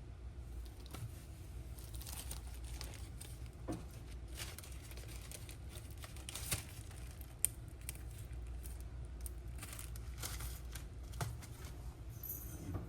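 Crinkling and rustling of packaging as seasonings are handled, with scattered light clicks and taps, over a low steady hum.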